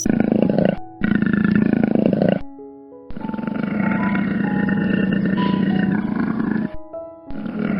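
A large animal roaring in four long, rough bouts, the third the longest at over three seconds, each cutting off abruptly. Background music with held notes plays underneath.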